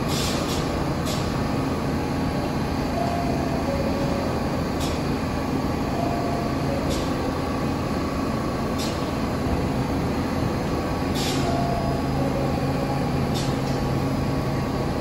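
New York City subway train running in the station: a steady rumble with a sharp click every couple of seconds.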